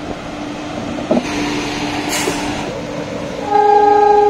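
Electric locomotive's horn sounding one loud, steady note, starting about three and a half seconds in and held. Before it, a low steady hum with a short hiss of air about two seconds in.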